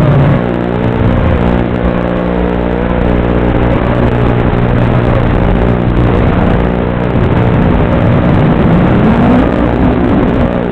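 FPV quadcopter's electric motors and propellers whining, the pitch swinging up and down again and again with the throttle over a steady buzz.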